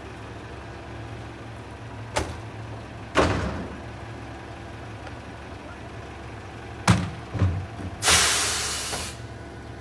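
Mack garbage truck's diesel engine idling steadily while bulky items are thrown into the metal container on its front forks, giving several loud bangs. Near the end comes a loud hiss of released air, about a second long.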